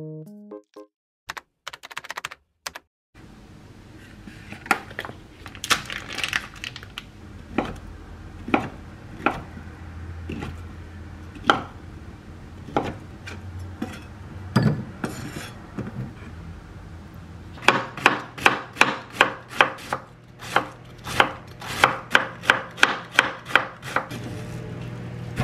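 Kitchen knife cutting on a wooden cutting board. First come scattered strokes as a roll of food is sliced into rounds. From about 18 seconds in there is a steady, quick chopping of roughly three strokes a second as cabbage is shredded thinly.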